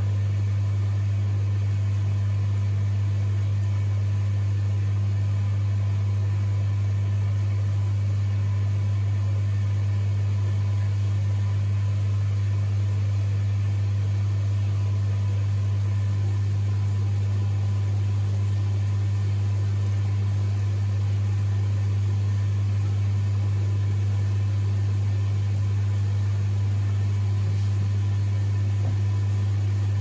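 Beko ECOWMB81445LW washing machine's drain pump humming steadily as it pumps the wash water out: one constant low hum, unchanging in level.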